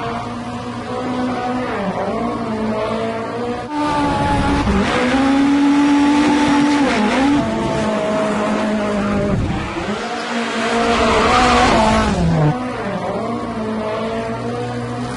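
Rally car's engine revving hard and rising and falling in pitch as it drifts and spins donuts, with loud tyre squeal. The tyre noise is loudest through the middle of the stretch.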